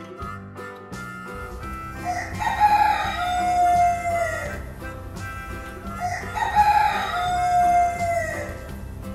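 A rooster crowing twice, each crow about two and a half seconds long and falling in pitch at the end, over light background music.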